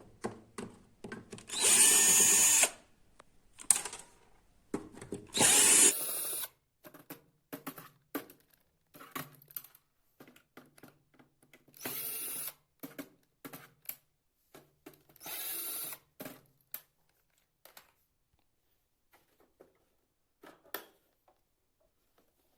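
A power screwdriver backing out the screws of a flat-screen TV's plastic back cover in four short runs, with clicks and small knocks of screws and plastic being handled between the runs.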